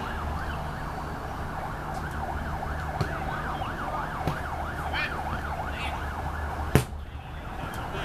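A siren in the distance, its pitch sweeping quickly up and down about four times a second, over a steady low background hum. It fades after about five seconds. A sharp thump about seven seconds in is the loudest sound.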